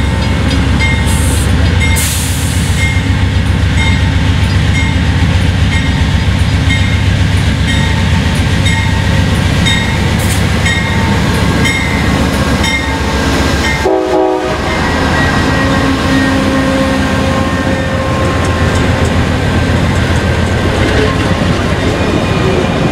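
Amtrak GE P42DC diesel locomotive passing close by, its engine a deep steady rumble, with a ringing repeated about once a second, which fits the locomotive's bell. Near the end the passenger cars roll past on the rails.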